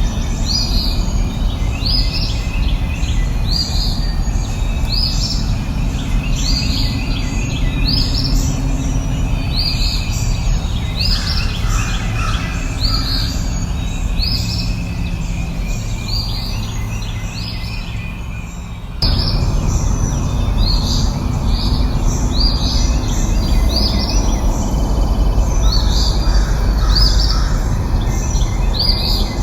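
A bird repeating a short, high, downward-sweeping call about once a second over a steady low rumbling background. About two-thirds of the way through, the background falls slightly, then jumps back abruptly.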